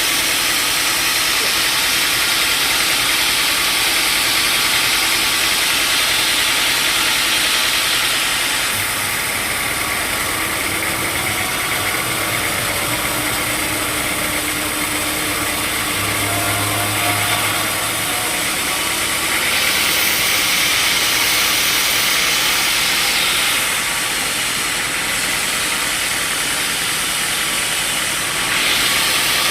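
Sawmill saw running and cutting through hard timber: a steady machine drone under a loud hiss of sawing that grows louder and eases in stretches, loudest for the first nine seconds or so, again about twenty seconds in, and near the end.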